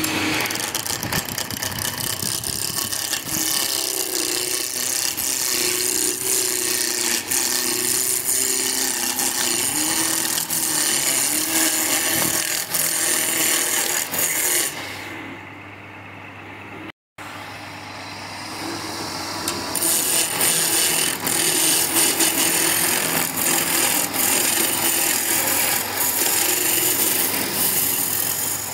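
Wood lathe running with a turning tool cutting into the spinning wood: a continuous rough scraping hiss over the lathe's steady hum. It thins out about halfway through, stops dead for an instant, then carries on.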